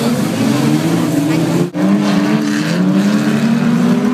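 Several unlimited banger racing cars' engines running and revving together as the pack races past, with rising and falling engine notes. The sound cuts out for an instant near the middle.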